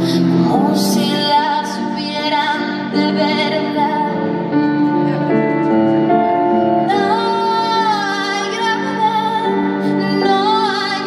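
A woman singing long, held notes over her own Nord Electro 5 stage keyboard, live.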